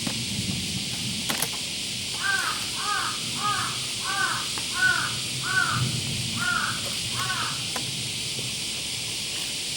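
A bird cawing, eight harsh calls in a row about two-thirds of a second apart, over a steady hiss.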